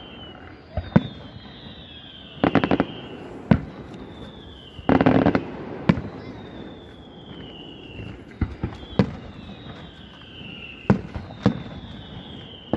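Fireworks display: sharp bangs of shells bursting, two dense runs of crackling about two and a half and five seconds in, and repeated whistles that fall in pitch as they rise.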